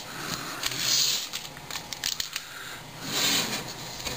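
Foil trading-card pack wrapper crinkling and rustling in two louder bursts, about a second in and again past three seconds, with a few light clicks of card stock being handled between them.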